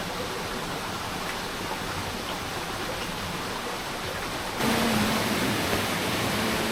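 Huangguoshu Waterfall's falling water making a steady rushing noise, which suddenly gets louder about two-thirds of the way through.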